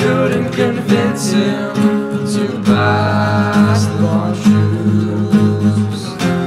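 Two acoustic guitars strummed together, with a male voice singing over them.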